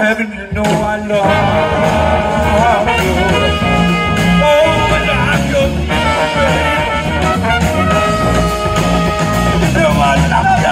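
Live band playing upbeat rock music. A horn section of saxophone, trumpet and trombone plays long held notes over electric guitars, bass, drums and congas.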